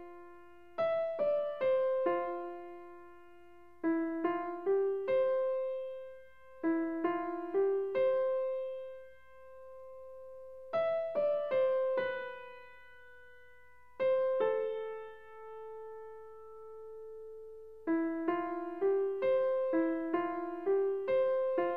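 Background music: a solo piano plays a simple melody in short phrases of quick single notes. Two longer held notes come in the middle, before the quick phrases resume near the end.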